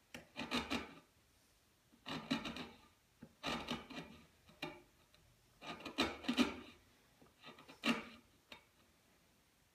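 A wide chisel paring across the edge of a wooden box side by hand, cutting a hinge socket down to its marked line: about seven short scraping strokes with brief pauses between them.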